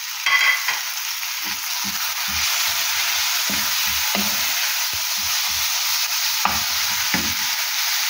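Chopped tomatoes and onions sizzling in hot oil in a frying pan, with a steady hiss that grows a little louder about two seconds in. A wooden spoon stirs them, knocking and scraping against the pan several times.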